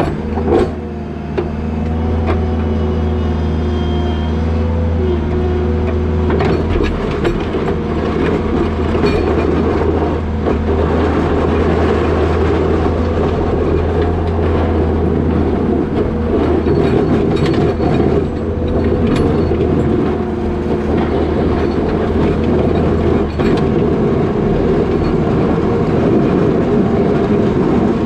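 New Holland L220 skid steer's diesel engine running steadily, with the rattles and knocks of the machine and its box plow throughout. A deep low drone under the engine fades out near the end.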